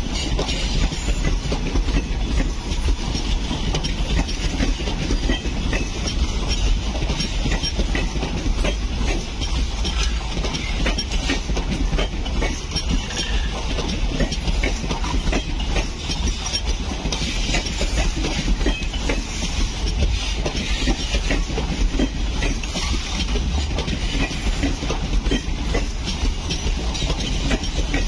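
Indian Railways ICF passenger coaches rolling past on the adjacent track: a steady rumble of steel wheels on rail with continuous clickety-clack over the rail joints.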